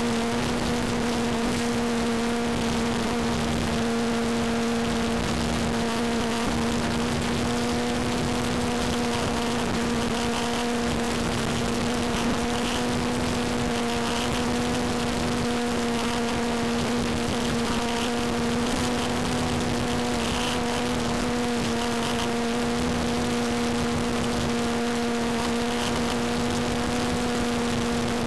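Electric motor and propeller of a radio-controlled Tucano model plane whining at one steady pitch, heard from a camera on board the plane, with a steady rush of wind over the microphone.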